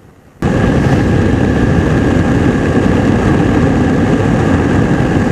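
Two-stroke engine and propeller of a Hi-Tec Hurricane ultralight running steadily in cruise flight, loud and close, with a steady high tone over the drone. It cuts in abruptly about half a second in.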